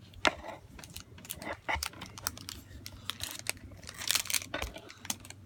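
Crinkling and crackling of a wrestling trading card pack wrapper being handled and picked at to open it: a run of sharp irregular crackles, with a longer crinkle about four seconds in.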